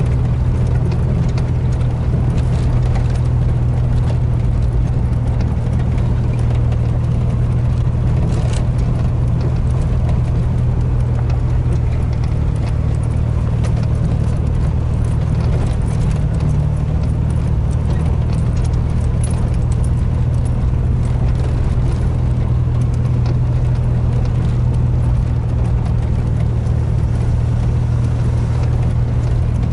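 Vehicle engine running steadily, heard from inside the cab as it drives along a rutted dirt road, a constant low drone with light scattered ticks and rattles on top.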